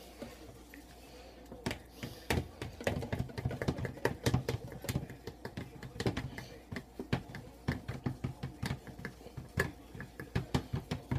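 Pancake batter being stirred in a bowl with a measuring cup: quick, irregular clicks and knocks of the cup against the bowl, several a second, starting about two seconds in.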